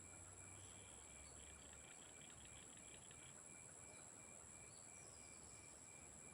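Faint insect chorus of crickets: steady high-pitched trills under a chirp that pulses evenly about three times a second, with a brief run of rapid ticks in the first half.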